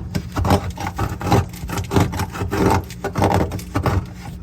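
A hand tool scraping and chipping at packed ice built up inside a refrigerator's freezer compartment, in repeated irregular strokes, a couple a second; the ice build-up comes from the over-frosting fault. A steady low hum runs underneath.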